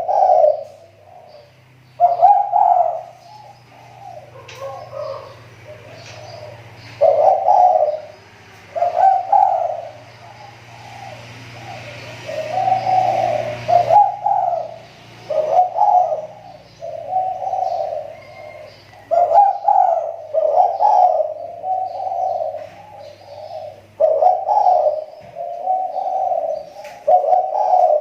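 Spotted dove (tekukur) cooing over and over, a new phrase of a few coos every one to two seconds. It is a decoy dove whose calling is recovering after a slump.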